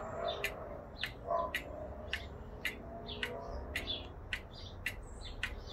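Antique carved quail cuckoo clock ticking steadily, about two ticks a second, with small birds chirping in the background.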